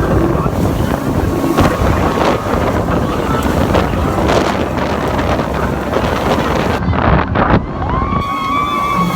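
Wind buffeting the microphone on a fast boat ride, over the rush of water and the boat's motor. Near the end a steady high tone starts.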